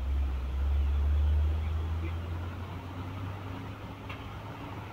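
Truck engine rumbling deep and strong as a loaded truck passes close by on an uphill grade, then dropping lower after about a second and a half as it pulls away.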